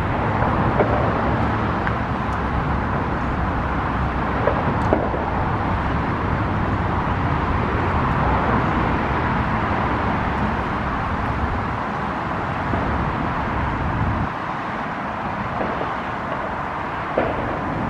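Steady road traffic noise, with a low engine rumble underneath that drops away about fourteen seconds in.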